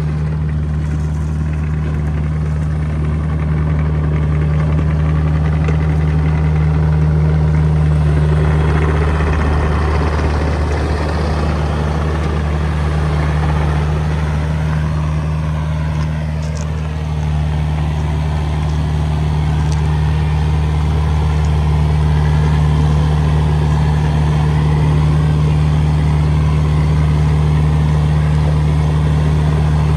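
An engine running steadily at a constant speed, with a brief dip in loudness about halfway through.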